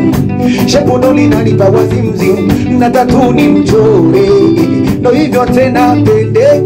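Live band music with a man singing lead into a microphone over keyboard, bass and a steady beat.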